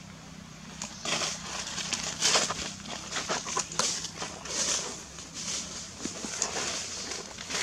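Dry fallen leaves crunching and rustling in irregular bursts, with a few sharper crackles.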